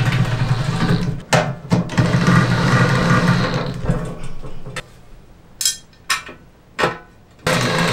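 Cordless drill driving screws into a sheet-steel stove's legs: two steady runs of the motor with a short break between them, over the first four seconds. Then a few sharp clicks and knocks of metal parts being handled.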